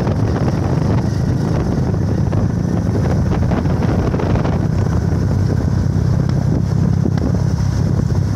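Motorcycle running steadily on the move, heard from the pillion seat, under a heavy rumble of wind on the microphone.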